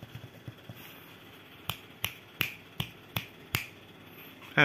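Six finger snaps in a steady rhythm, about three a second, starting a little over halfway in, with a few fainter ticks before them.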